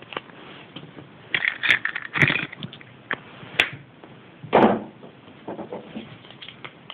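Small plastic toy pieces, a plastic capsule and a paper leaflet from a Kinder Surprise egg handled on a tabletop: a run of crinkling and sharp clicks, a single sharp click, then a louder knock as something is set down, with lighter clicks after.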